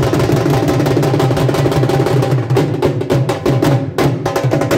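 Dhol drums beating a fast, dense rhythm.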